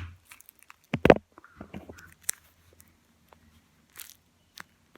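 Paper squishy crinkling and crunching as it is squeezed and handled: a loud crunch about a second in, then scattered small crackles and clicks.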